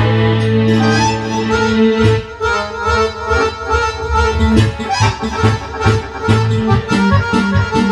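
Two chromatic button accordions playing a folk tune together. A held chord for about the first two seconds gives way to a quick melody over a steady pulsing bass.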